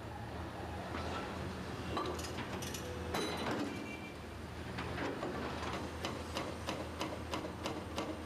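Tracked excavator's hydraulic breaker hammering broken concrete over the steady hum of the machine's diesel engine. The knocks are irregular at first, then settle about five seconds in into regular strikes, about three a second.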